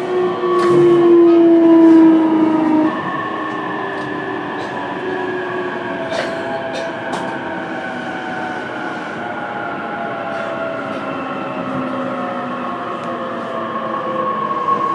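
Running noise inside an E233-series electric motor car. The traction motor and inverter whine glides slowly down in pitch as the train slows, with a few sharp rail-joint clicks. A strong tone makes the first three seconds louder.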